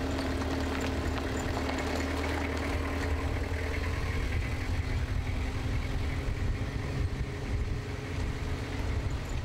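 A vehicle driving along a dirt road: a steady engine drone with the rumble of tyres and road noise.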